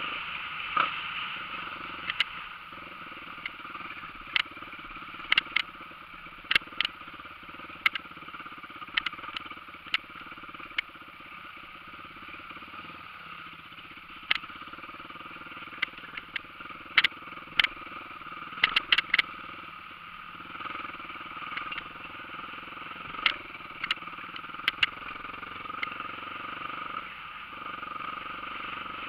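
Dirt bike engine running steadily while riding a rough trail, with frequent sharp knocks and rattles scattered through it.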